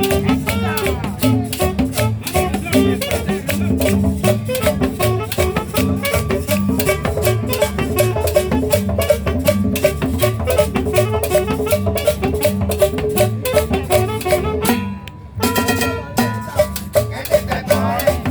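Tropical Latin dance music with a steady percussion beat, in the salsa style, briefly dropping out about fifteen seconds in.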